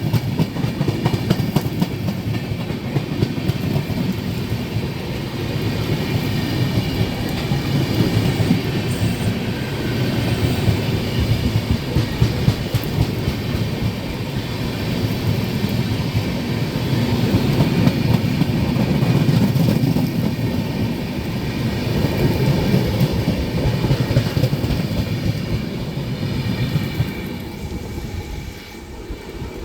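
Express passenger train's coaches running past at speed in heavy rain, wheels clattering over the rail joints under a steady rumble. The rumble fades near the end as the train passes, leaving the rain.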